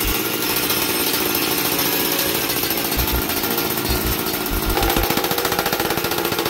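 Weed eater two-stroke engine on a gas-converted Razor mini dirt bike, idling with a fast, even pulsing exhaust note through a long exhaust pipe with a muffler canister held on its end. About five seconds in, the exhaust note changes as the muffler canister comes off the pipe.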